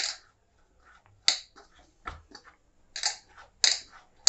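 Hands kneading and pressing whole wheat chapati dough against a plate: a run of short, sharp sticky slaps and squelches, about one a second, with a soft knock of the plate about two seconds in.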